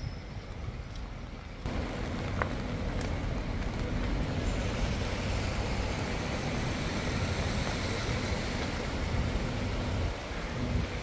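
Wet street in heavy rain: a steady hiss of rain and water with the low rumble of traffic running. The hiss gets suddenly louder about two seconds in.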